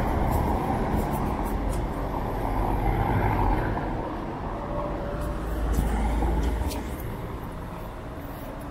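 Cars driving past on a stone-paved street, a low engine and tyre rumble that dies away about two-thirds of the way through.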